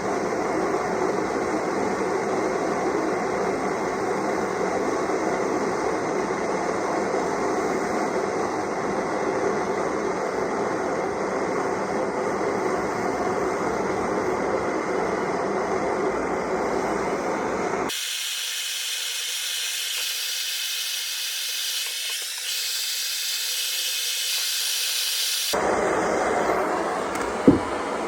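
Gas blowtorch roaring steadily while heating a soldered copper pipe joint. For several seconds past the middle only a high hiss remains, and a single sharp click comes near the end.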